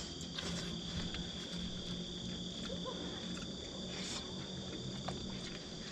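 Crickets trilling steadily in a continuous high-pitched chorus, with a faint low hum underneath.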